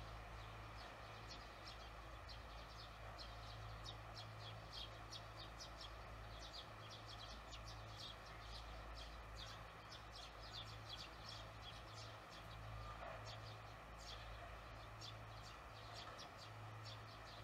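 Barn swallows twittering faintly: a steady run of short, high chirps, several a second, over a constant low hum.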